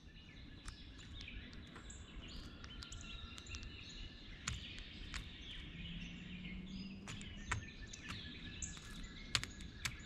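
Wild songbirds chirping and singing faintly in the surrounding woods, with a faint low hum about six seconds in. Near the end come a few sharp clicks of a bird pecking and picking at peanuts and seed on the feeder tray.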